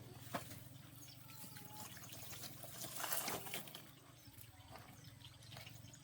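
Faint water trickling and splashing, with scattered small clicks and knocks and a louder splash about three seconds in.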